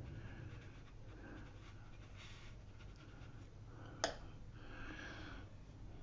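Faint swishes of a paintbrush stroking watercolour paper, several soft strokes, with a single sharp click about four seconds in.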